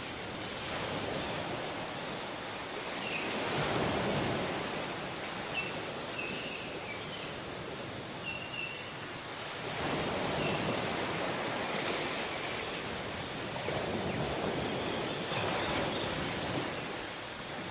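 Ocean surf: a steady wash of waves that swells and falls back every five or six seconds. A few faint, short high chirps come and go through the first half.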